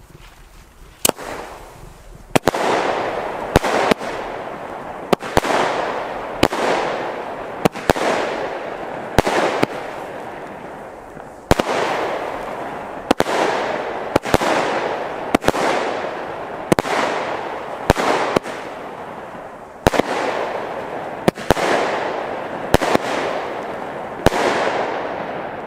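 Argento Matrix small-calibre firework battery firing. One shot goes off about a second in, then a steady string of shots follows roughly every one and a half seconds. Each is a sharp bang followed by a fading rush of noise.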